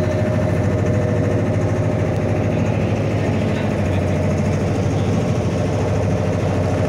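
A wooden fishing boat's engine running steadily under way, a loud, even, rapid throb.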